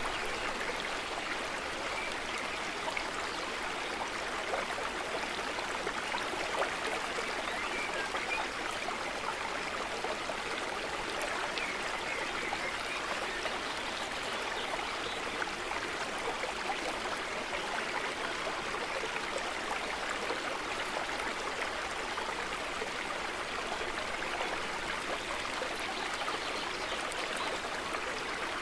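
A small stream of running water flowing steadily, an even rush of water with fine flickering detail and no breaks.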